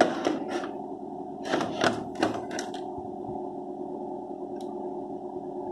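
Plastic case of a TP-Link Archer C1200 WiFi router knocking and clicking as it is handled and turned around: a cluster of clicks at the start and another about one and a half to two and a half seconds in, over a steady low hum.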